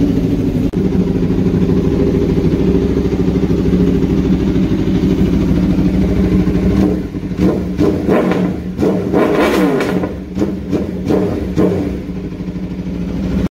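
Aprilia RSV4 Factory 1100's V4 engine running through an Arrow slip-on exhaust with its dB-killer insert left out. It idles steadily for the first half, then takes several quick throttle blips, each rising and falling in pitch, before settling back to idle near the end.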